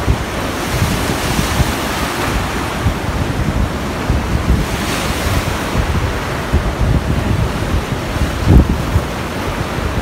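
Choppy sea surf washing against a seawall and rocks, a steady hiss that swells about a second in and again about five seconds in. Wind buffets the microphone throughout with a low rumble.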